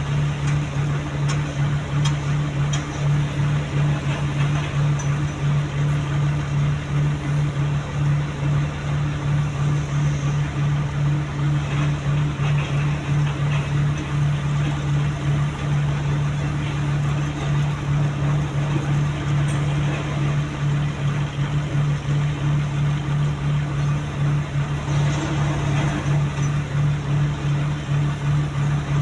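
Heavy construction machine's diesel engine running steadily at a constant speed, a strong low drone that holds without revving up or down.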